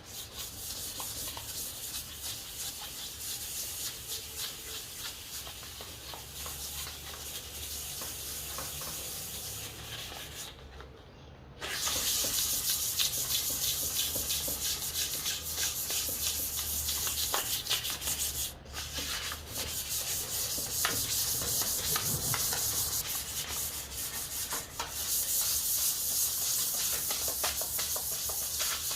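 Sandpaper rubbing over a hardwood fruit bowl of ipê and purpleheart (roxinho), a steady scratchy hiss made of quick strokes. It stops for about a second around eleven seconds in, comes back louder, and breaks off again for an instant a few seconds later.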